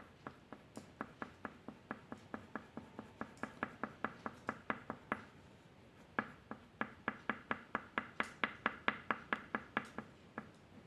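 A pen or pencil striking paper in quick, even strokes, about four or five a second, in two runs with a pause of about a second in the middle.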